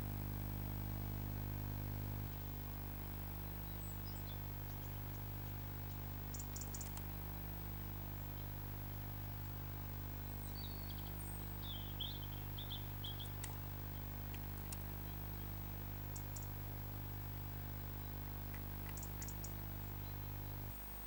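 Steady low electrical hum in the nest-box audio, dropping slightly about two seconds in. A few faint high chirps come around the middle, and a few faint ticks.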